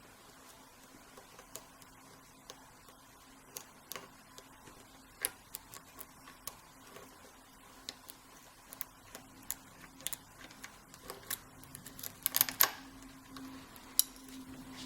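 Single-pin picking an American Lock 5200GLKA padlock: the pick and tension wrench tick and click irregularly against the pins in the keyway, with a quick run of clicks about twelve seconds in, as the picker searches for a binding pin.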